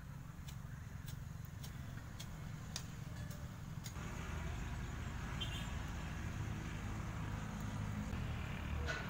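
Low, steady rumble of road traffic, which grows louder about four seconds in as a vehicle draws near, with a few light clicks in the first few seconds.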